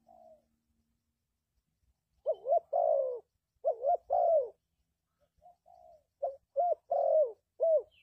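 Spotted dove cooing: after a faint first note, phrases of quick up-and-down coos, each run ending in a longer falling note, come several times, faster toward the end.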